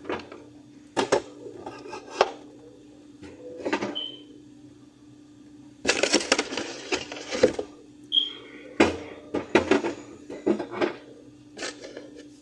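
Drink cans and bottles being handled and set into a refrigerator: scattered knocks and clicks, a dense rattling clatter about six seconds in and more knocks after it, with two short ringing clinks. A steady low hum runs underneath.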